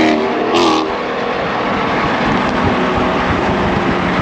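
Dodge muscle cars running at highway speed: a steady engine drone mixed with road and wind noise. A brief louder, higher sound comes right at the start.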